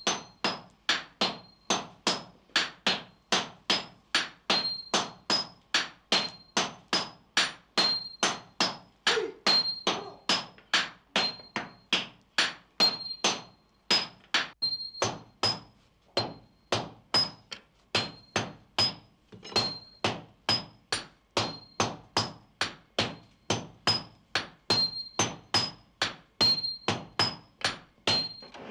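Sledgehammers striking glowing steel on an anvil during Japanese sword forging: a steady, even rhythm of about two to three blows a second, each with a short metallic ring.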